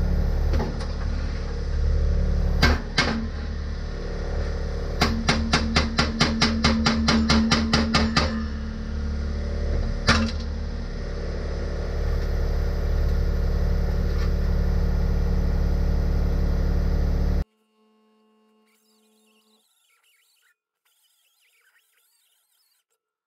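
A steady, loud machine running, with a fast run of about six clicks a second lasting some three seconds and a few single sharp knocks; it cuts off abruptly near the end.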